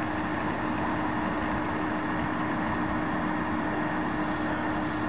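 Cleaning machine's motor running steadily: an even rushing noise with a constant hum.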